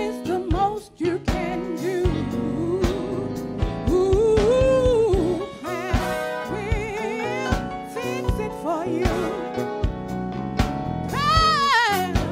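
Gospel song: a solo voice singing with strong vibrato over a steady beat and instrumental backing.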